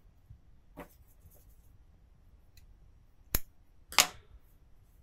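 Two sharp clicks about two-thirds of a second apart, the second louder, with a faint rustle about a second in: small handling sounds of crochet work with a hook and cotton yarn.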